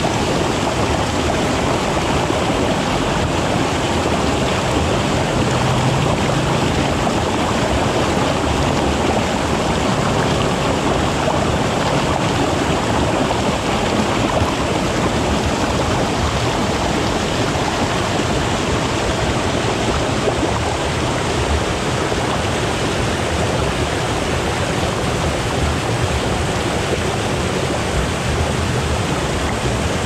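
Waterfall and river water rushing steadily, a dense, unbroken wash of falling and flowing water at a constant level.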